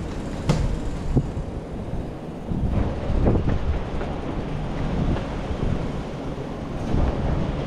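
Steady low rumble of a moving vehicle, with two sharp knocks about half a second and just over a second in.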